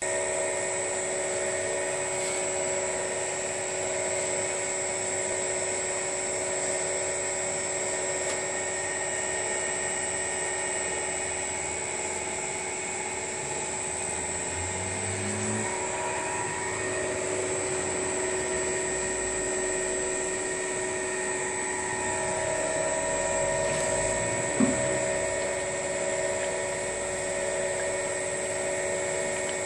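DMS 500 cold screw oil press running steadily while pressing walnuts, a continuous mechanical whine with several held tones. One short knock sounds once, late on.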